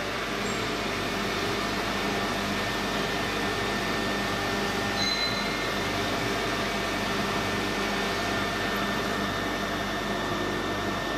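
Steady mechanical whirring hum with a few faint constant whines and no break or change, typical of cooling fans on powered-on equipment.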